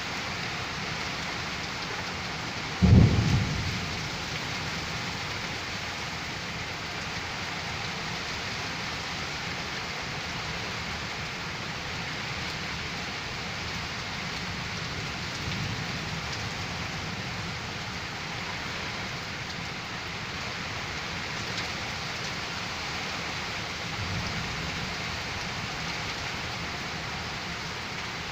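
Steady rain, with one sudden loud clap of thunder about three seconds in that dies away within a second, and two fainter low rumbles of thunder later on.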